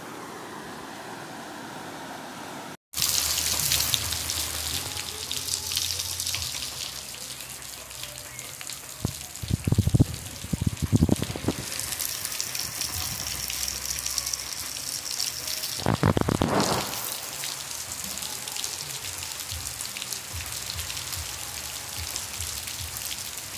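Rushing floodwater of a muddy river. After a brief cut, steady rain falls on puddled ground and a wet street, with louder low rumbles twice, about ten and sixteen seconds in.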